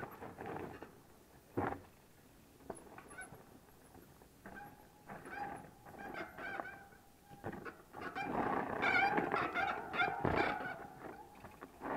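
Mountain bike disc brakes squealing in wavering, honking tones while braking on a steep descent, loudest from about eight to eleven seconds in. Sharp knocks and rattles of the bike going over roots and rocks come through, one early and a loud one near the end.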